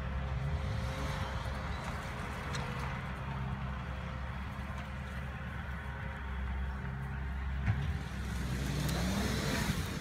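2015 Toyota 4Runner's 4.0-litre V6 running steadily as the SUV drives over rough ground. Near the end the engine rises in pitch and grows louder as it accelerates.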